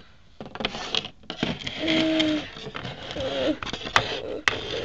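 Plastic toy pieces being handled and set down on a wooden floor: rustling with sharp clicks near the end. A short held voice-like note comes about two seconds in, and a brief wavering one follows.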